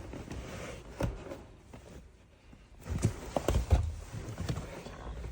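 Knocks and clunks of the short shifter's metal sandwich plate being handled and fitted in the gear-lever opening: one knock about a second in, then a quick cluster of several knocks around three to four seconds in.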